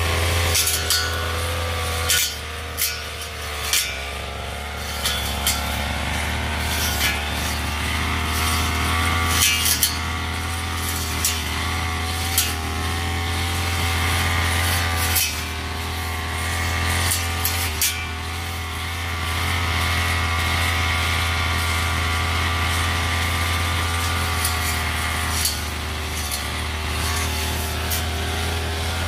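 Backpack brush cutter's small engine running steadily at working speed as its circular blade cuts grass, with frequent sharp clicks throughout.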